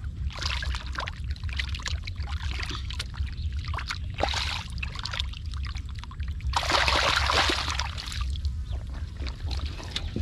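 Hands sloshing and splashing through shallow muddy water while groping in the mud, in irregular bursts, with the loudest stretch about two-thirds of the way through. A steady low rumble runs underneath.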